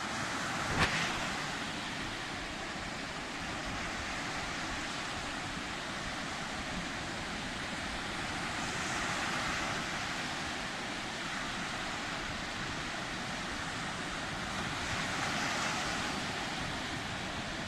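Sea waves washing in, a steady surf hiss that swells twice as waves break, with wind buffeting the microphone. A short sharp knock about a second in.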